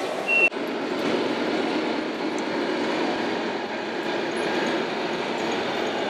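One last electronic reversing beep from an RC model truck's sound module, cut off sharply about half a second in. Then a steady, even din of model trucks running on the layout.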